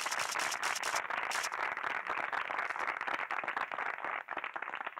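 Audience applauding, a dense patter of many hands clapping that thins out and dies down near the end.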